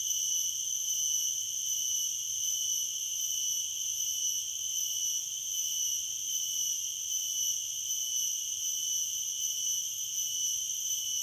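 Steady, high-pitched insect drone from cicadas (garengpung) and crickets, called 'music' and 'great' by the listener, holding one even pitch with higher overtones without a break.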